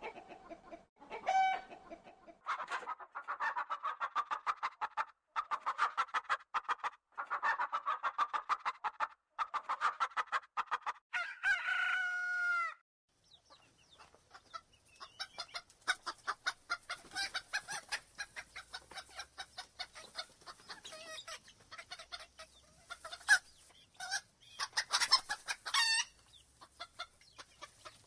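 Domestic chickens clucking in rapid runs of notes, with a short crow about eleven seconds in and another gliding call near the end.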